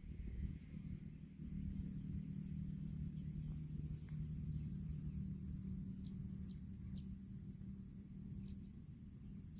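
Outdoor rural ambience: insects chirring in a steady high pitch over a low steady hum and rumble, with a few faint sharp ticks about six to eight and a half seconds in.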